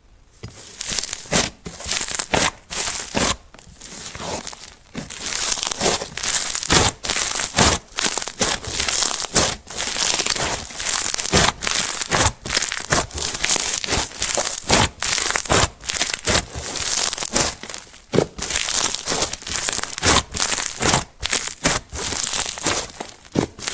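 Slime being squished and worked by hand: a steady run of sticky crackles and sharp little pops, with louder squelching strokes about every half second.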